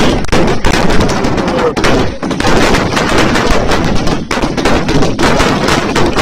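Fireworks and firecrackers going off in a rapid, unbroken string of loud bangs and crackles, like machine-gun fire.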